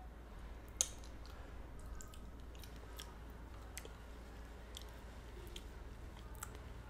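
Faint mouth sounds of a person eating mashed potatoes: scattered soft clicks and smacks of lips and tongue, one slightly louder about a second in, over a low steady hum.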